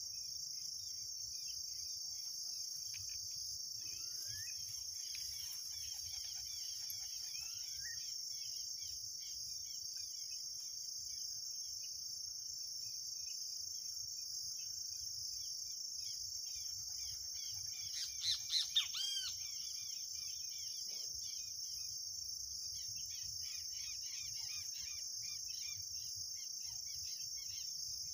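Steady high-pitched chorus of insects, with birds chirping now and then and a louder run of several bird calls about two-thirds of the way through.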